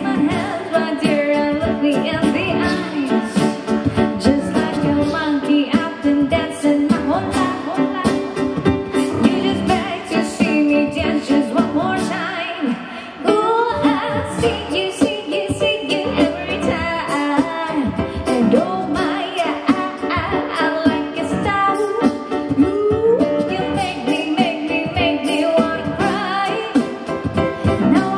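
Live pop song: a woman sings the lead into a microphone over electric keyboard accompaniment, with a steady beat. The music eases briefly about halfway through, then picks up again.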